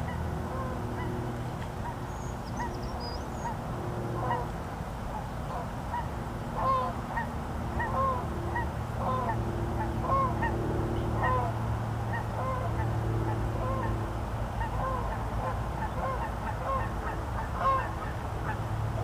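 Geese honking over and over, many short calls overlapping, with a steady low hum underneath.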